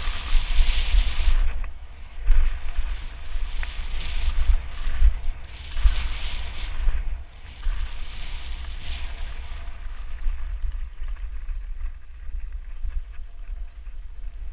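Wind buffeting an action camera's microphone while cycling along a gravel trail, with a hiss of bike tyres rolling over gravel that comes and goes and grows weaker after about ten seconds.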